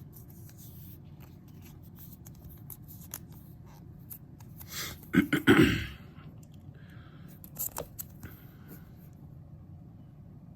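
Small scrapes, clicks and rustles of trading cards and plastic sleeves being handled on a table, with a louder burst of handling noise about five seconds in and a shorter one near eight seconds.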